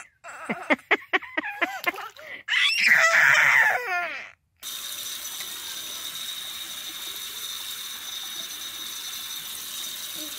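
A toddler laughing and squealing in quick repeated bursts, loudest about three seconds in. Then, after a sudden break, a bathroom sink faucet runs steadily into the basin as a continuous hiss with a thin high whine.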